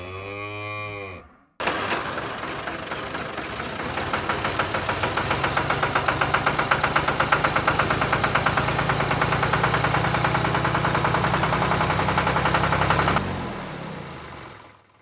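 A cow moos once, a long call bending in pitch. After a short break, a tractor engine starts abruptly and runs with a rapid, even chugging that slowly grows louder, then cuts down and fades out near the end.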